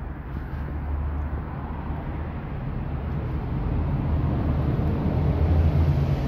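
Steady low rumble of street background noise, growing a little louder over the last couple of seconds.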